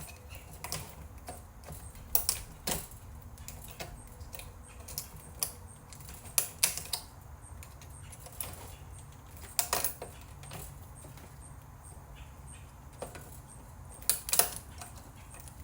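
Scattered sharp clicks and snaps of tools and plastic and metal parts being handled as a VCR is taken apart, coming in small clusters a few seconds apart, over a low steady hum.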